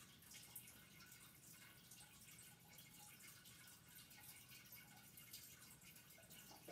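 Near silence: faint room tone with a few scattered soft ticks.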